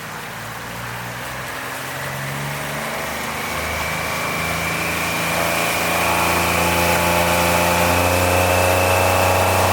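Boat's tiller outboard motor being throttled up, its pitch and loudness rising steadily as the boat gathers speed, over a hiss of wind and water.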